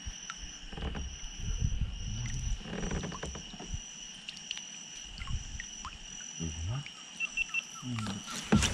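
Insects calling along the river: a steady high buzz with a shrill call repeating about one and a half times a second. Under them, low rumbling sounds come and go, and a sharp knock comes near the end.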